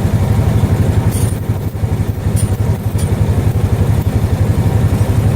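Small gasoline engine running steadily with a fast, even beat, with a few brief sharp ticks in the first three seconds.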